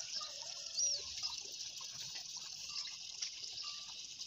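Faint farmyard background: a steady high hiss, with a couple of short chirps about a second in and near the end.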